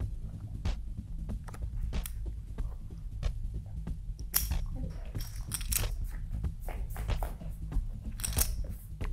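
Poker chips clicking and clattering against each other and the table, with playing cards being handled, as a series of sharp scattered clicks. A low, steady music bed plays underneath.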